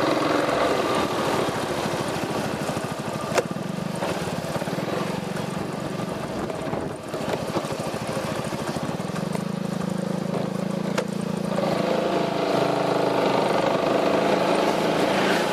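Piaggio MP3 400 scooter's single-cylinder engine running through an Akrapovic exhaust, a steady drone that dips briefly about seven seconds in and then picks up again. A sharp click is heard about three seconds in.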